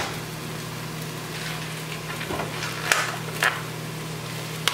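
Sliced mushrooms and onion sizzling steadily in a stainless steel pot, under the steady low hum of a microwave oven running. A couple of faint clicks about three seconds in.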